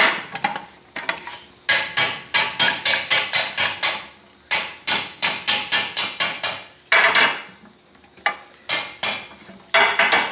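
Hammer striking a brass punch to drive the countershaft out of a Ford Model A transmission case. Two runs of quick metal taps, about four a second, are followed by a longer, noisier sound about seven seconds in and a few scattered strikes.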